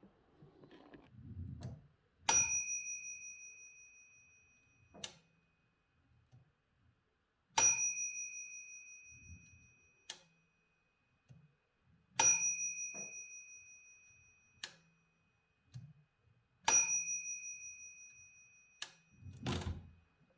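A typewriter's mechanical margin bell struck four times, evenly spaced about four to five seconds apart, each a bright ding that rings on and fades over about two seconds. A single short mechanical click follows each ring a couple of seconds later.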